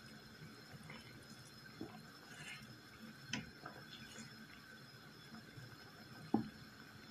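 A wooden slotted spatula stirring a boiling saucepan, giving a few scattered light knocks against the pot; the sharpest knock comes near the end. A faint steady hum lies under it.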